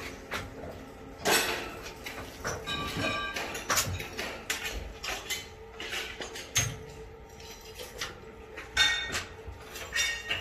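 Irregular metallic clanks and knocks, some ringing briefly like struck steel, the loudest about a second in and a cluster near the end, over a faint steady hum.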